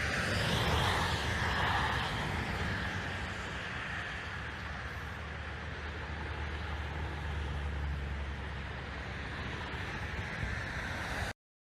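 Steady engine rumble of a vehicle or machinery, with a broad hiss over it, loudest in the first two seconds and cutting off abruptly near the end.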